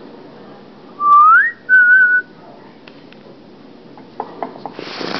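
A person whistling to call a dog: a quick rising whistle about a second in, then a short held note with a slight wobble. Near the end come a few light taps and a brief rush of noise.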